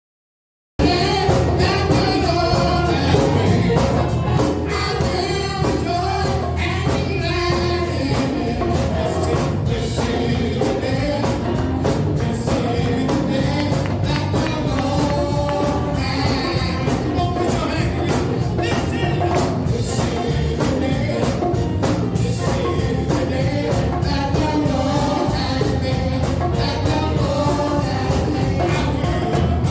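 Gospel worship music with singing over a band and a steady percussive beat, cutting in abruptly about a second in after dead silence.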